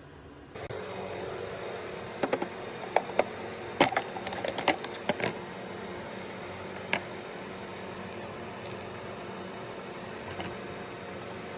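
A steady mechanical hum that starts under a second in, with a cluster of sharp clicks about two to five seconds in and one more click a little later.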